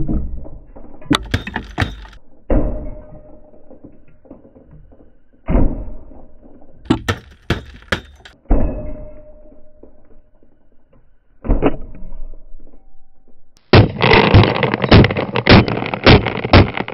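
A hammer smashing a plastic KerPlunk toy: a series of hard cracks and thunks as the plastic tube breaks and sticks and marbles scatter and clatter across the mat. Near the end comes a louder, dense stretch of rapid knocking and clatter.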